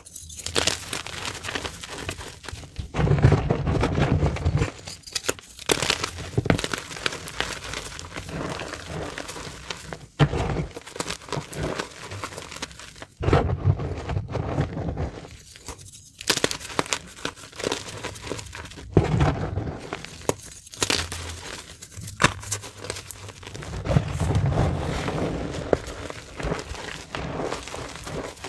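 Gym chalk bars crushed and crumbled in rubber-gloved hands over a tub of loose chalk powder. Irregular dry crunching and crackling, with heavier squeezes and presses into the powder giving soft dull thuds three times.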